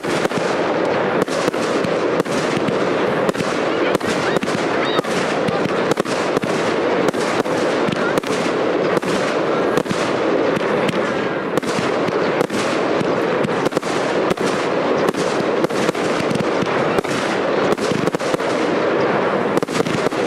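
Aerial fireworks going off in a continuous barrage: an unbroken dense crackle with sharp bangs several times a second.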